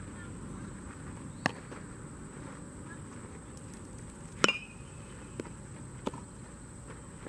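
Baseball infield practice: a few sharp knocks of a ball being hit and caught, the loudest about four and a half seconds in with a brief metallic ring, like a metal bat striking the ball, followed by softer knocks about a second and a second and a half later.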